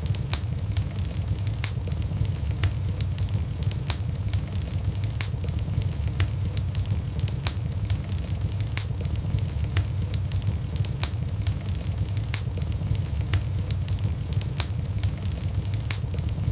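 Wood fire in a fireplace crackling, with frequent irregular sharp pops over a steady low rumble of the burning.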